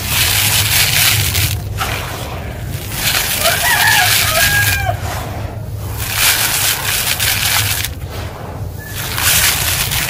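Crumbling dusty concrete grit being rubbed and shaken through a plastic sieve basket: a gritty, sandy hiss that swells in repeated surges every couple of seconds. A rooster crows once in the background about three seconds in.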